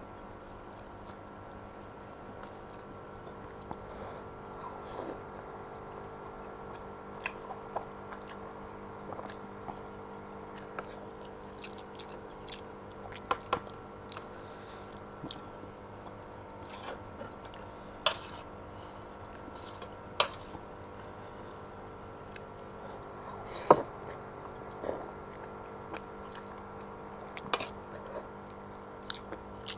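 Close-up eating noises of a person chewing chicken noodles: wet chewing with scattered sharp clicks and smacks, a few louder ones in the second half, over a steady background hum.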